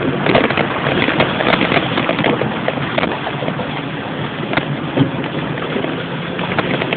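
A vehicle driving through floodwater: a steady rush of splashing water with many small spatters, and the engine running faintly underneath.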